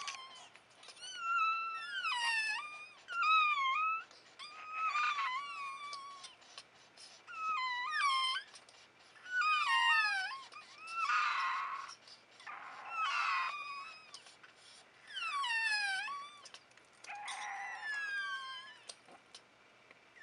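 Newborn Phalène puppies, a few hours old, crying in high, thin squeals. About a dozen cries come a second or two apart, most sliding down in pitch and some wavering.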